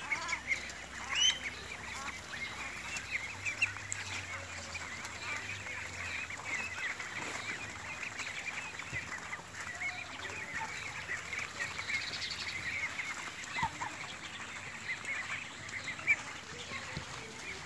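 A large flock of domestic ducks quacking continuously, many short calls overlapping into a steady chatter, with a few louder calls standing out now and then.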